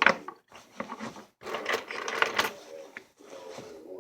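Handling of the reassembled tin-plate Marx toy diesel locomotive: irregular clicks, light knocks and scraping rubs, with a longer rustling scrape about halfway through.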